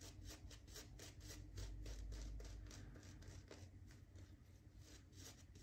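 Shaving brush working soap lather onto the face and beard, faint quick scratchy strokes at about five a second.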